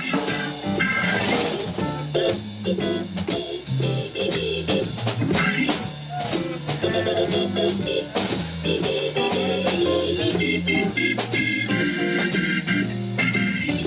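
Live jazz organ combo playing an instrumental passage: Hammond organ holding and moving chords over a drum kit with steady cymbal strikes.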